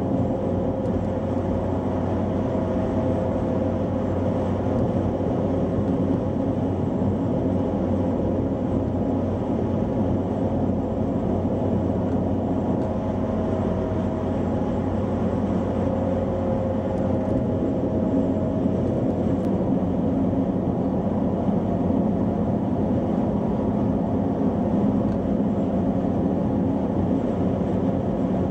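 Steady road and engine noise inside a car cruising at motorway speed: a continuous tyre rumble and drone with a low, even hum.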